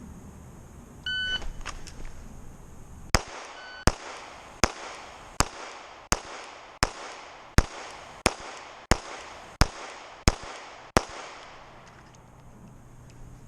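A shot timer beeps about a second in. Then a Sig Sauer P365 pistol fires twelve shots at a steady, even pace, a bit under a second apart.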